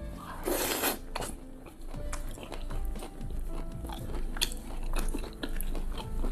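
A man chewing a mouthful of braised beef brisket in thick glossy sauce, with small wet clicks and smacks of the mouth. There is a short rushing breath-like noise about half a second in.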